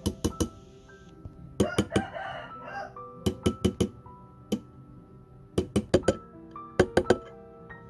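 Sharp metallic taps in quick groups of three or four, from a setting tool working the prongs of a silver ring over its stone on a steel mandrel, over soft background music. A rooster crows faintly about two seconds in.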